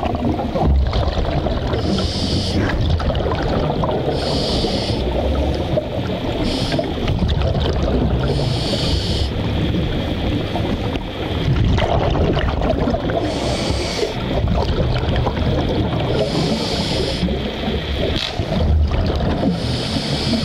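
Scuba regulator breathing heard underwater: a hissing breath through the regulator every few seconds, over a steady low rumble of exhaled bubbles and water.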